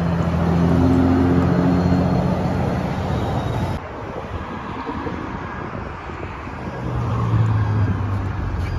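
Road traffic with city buses: a bus engine accelerating, its note stepping up in pitch, cut off abruptly a little under four seconds in. Then quieter passing traffic, with a vehicle's low engine note growing louder as it comes past about seven seconds in.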